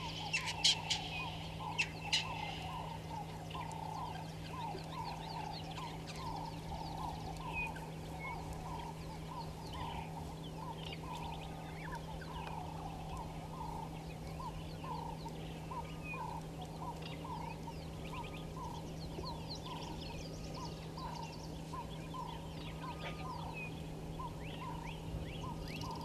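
Wild birds calling: the same short note repeated over and over, roughly every half second, with scattered higher chirps and a few sharp calls near the start, over a steady low electrical hum.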